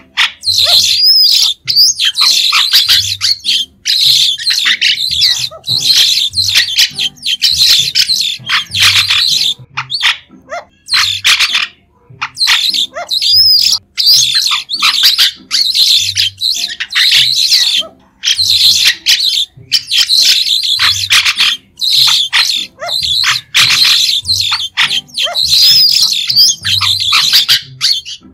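White-shouldered starling (Sturnia sinensis) calling: shrill, chattering bouts a second or two long, broken by brief pauses, with an occasional rising whistled note.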